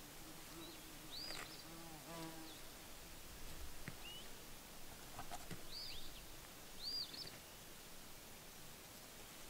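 A flying insect buzzing close by for the first two seconds or so, over a faint outdoor background. A bird gives short, arched chirps about four times.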